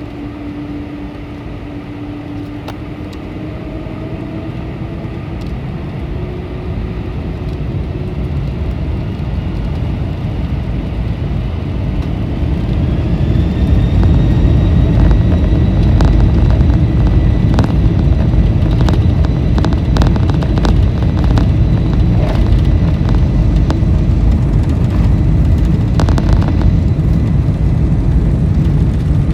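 Cabin sound of a Boeing 747-400's four Pratt & Whitney PW4056 turbofans spooling up: the engine whine rises in pitch and the noise grows steadily louder for about fourteen seconds, then holds at full thrust as a heavy rumble, typical of a takeoff roll. Over the rumble come many sharp rattles and knocks from the cabin as the aircraft rolls.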